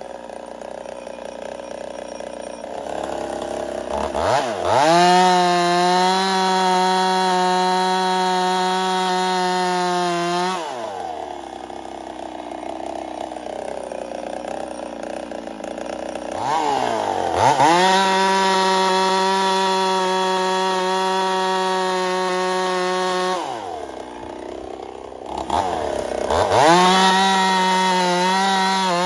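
Ported Husqvarna 55 two-stroke chainsaw revving up to full throttle three times and holding a steady high pitch for about six seconds each, dropping back to idle between runs. The owner judges the saw to be losing power from a scored, failing cylinder.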